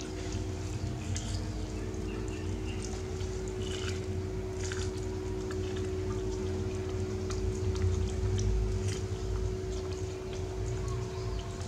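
Baby macaque picking at and chewing boiled corn on the cob: scattered small clicks and crunches over a steady low hum.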